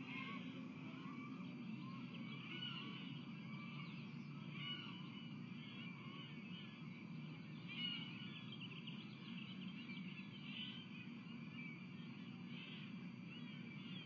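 Birds chirping in short, scattered calls, some sliding upward in pitch, over a steady low background rumble.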